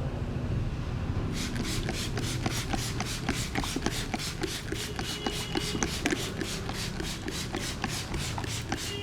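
Rapid, even hand strikes of a percussive head massage, about six a second, with the palms or edges of the hands tapping on the head. They start about a second and a half in and run on steadily.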